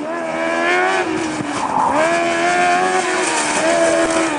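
Formula SAE race car engine running hard through a cone course, its pitch rising and falling with the throttle. It dips about one and a half seconds in, climbs back, and eases again near the end.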